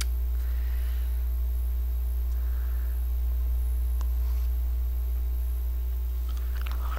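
Faint, soft sounds of ice cream being eaten from a spoon, with a small click about four seconds in as the spoonful goes into the mouth, over a steady low electrical hum that is the loudest thing heard.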